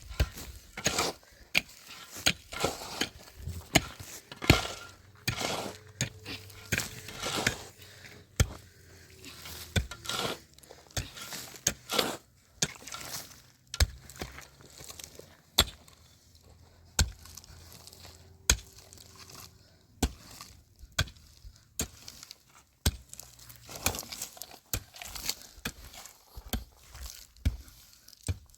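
Sharp chopping or knocking strikes, repeated irregularly about one to two times a second.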